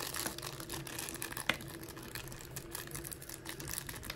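Thin clear plastic wrapping crinkling and rustling as it is pulled off a small plastic miniature, with one sharper click about a second and a half in.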